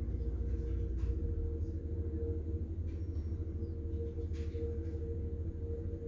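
Caterpillar tandem asphalt roller running, a steady low rumble with a constant hum over it. A couple of faint clicks sound over it.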